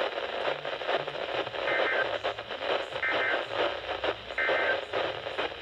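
Three short bursts of Emergency Alert System (SAME) data tones about a second apart, the end-of-message code that closes an alert, heard through a radio receiver with steady hiss.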